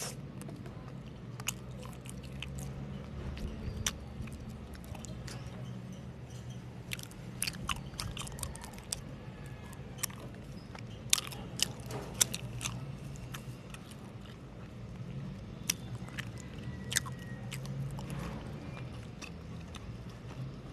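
Close-miked chewing of homemade mochi ice cream: irregular wet mouth clicks and smacks, clustered in a few flurries.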